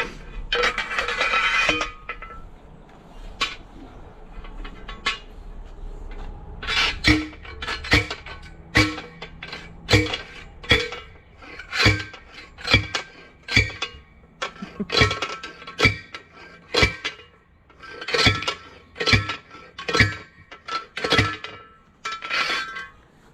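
A fence post is driven into the ground with a post driver: about twenty ringing metal clangs at roughly one a second, starting about seven seconds in. A short scraping noise comes near the start.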